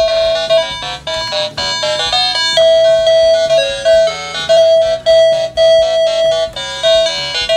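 Electronic beeping tune from a toy police car's sound chip: a simple melody of plain, buzzy notes that step up and down in pitch.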